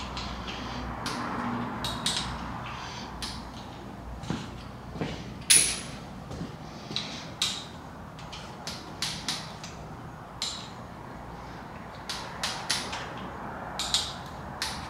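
A hand-operated torque wrench working the camshaft sprocket bolts of a 5.3L LS V8 down to their 18 lb-ft torque: irregular sharp metallic clicks and ratchet ticks, the loudest about five and a half seconds in.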